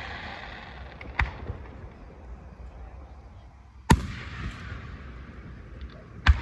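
Fireworks going off: three sharp bangs, about a second in, near four seconds and near the end, the middle one loudest, each trailing off into a fading hiss.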